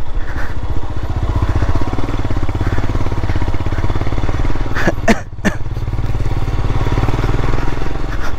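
Royal Enfield Himalayan's single-cylinder engine running at low speed under light throttle on a rough dirt trail, in an even thumping rhythm. About five seconds in it briefly drops off, then picks up again.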